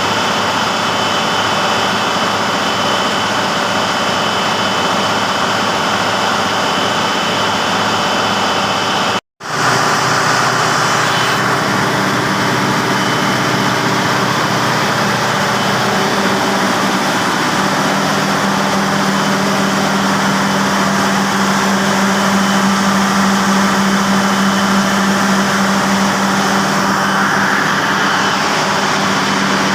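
Diesel generator engine running steadily. The sound cuts out for a moment about nine seconds in, and from about seventeen seconds a steady low hum grows stronger.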